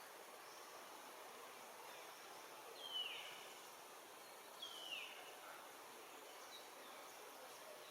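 Faint steady outdoor background noise with two short animal calls that sweep down from high to lower pitch, about two seconds apart near the middle.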